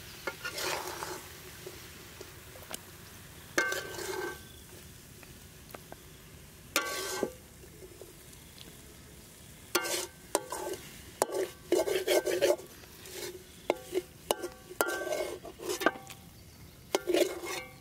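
Metal spatula scraping and clinking against a metal wok as cooked taro stolons are stirred and scooped out. Separate scrapes with short ringing clinks, sparse at first and coming in a quick run in the second half.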